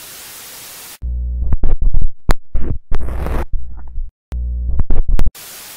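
Glitchy electronic intro sting: static hiss, then from about a second in a low electric buzz chopped up by sharp digital clicks and a rush of noise. It cuts out briefly around four seconds in, buzzes again, and gives way to static hiss near the end.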